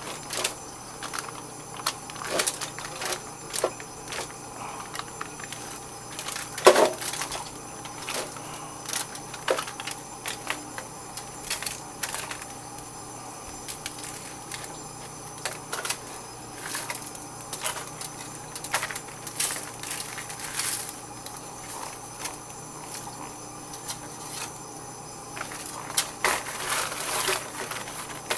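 Kitchen handling sounds: scattered light clicks, clinks and rustles as a seasoned pork loin is pressed and handled in a roasting pan, with one louder knock about seven seconds in.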